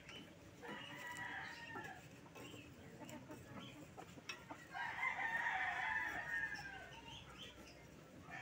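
A rooster crowing: a shorter call about a second in, then a longer, louder crow about five seconds in.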